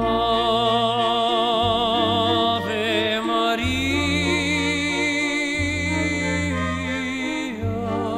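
Slow classical music: an operatic solo voice holds long notes with strong vibrato over strings and a sustained low bass.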